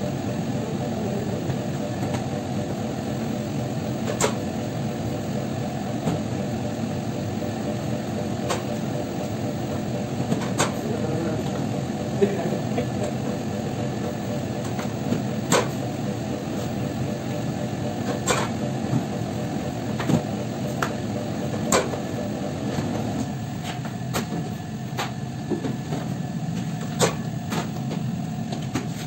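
Steady hum of bakery machinery, with sharp knocks now and then as dough is cut and handled on a steel worktop.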